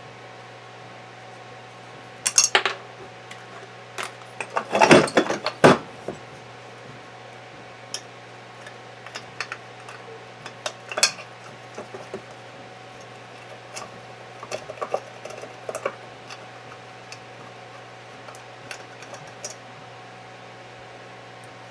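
Small metal gearbox parts clinking and clattering as they are handled and set down during disassembly, in scattered clicks with a louder run of clatters about two to six seconds in, over a steady low hum.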